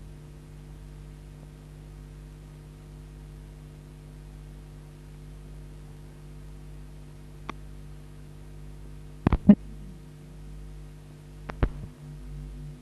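Steady electrical mains hum with a buzzy stack of overtones over faint hiss, broken by a few sharp clicks: a small one, a loud pair about nine seconds in, and another near the end.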